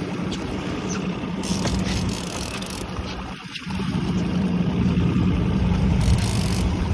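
Boat engine running steadily at low speed with a constant hum, dipping briefly about halfway through.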